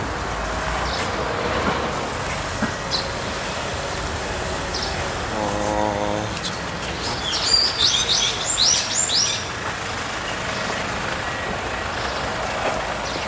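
Steady background traffic noise, with a quick run of high bird chirps about seven to nine seconds in.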